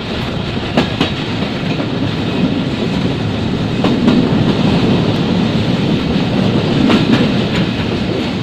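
Moving train heard from on board: a steady rumble of wheels on rails, with the wheels clicking over rail joints in quick pairs about every three seconds.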